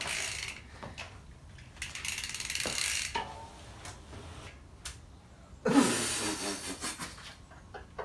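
Mountain bike being ridden, its rear freehub ratcheting in bursts of rapid clicks while it coasts. The loudest burst comes about six seconds in.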